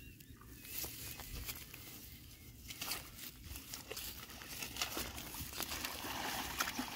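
Footsteps and rustling through grass and water hyacinth leaves: faint, irregular crackles and swishes.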